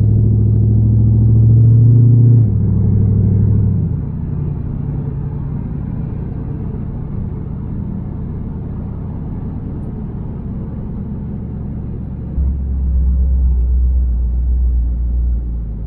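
2002 Camaro SS's LS1 V8 and road noise heard from inside the cabin while cruising. There is a steady low drone, strongest in the first few seconds, easing off about four seconds in, then deepening and growing louder again about twelve seconds in.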